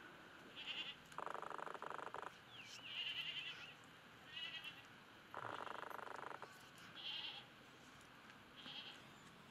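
Livestock bleating: two long, wavering bleats, one a little over a second in and another about five seconds in, each lasting about a second. Short high chirps come between them.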